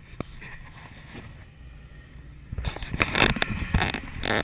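Low, steady car-cabin rumble. From about two and a half seconds in, a run of loud, irregular rubbing and knocking comes from the camera being turned around on its mount.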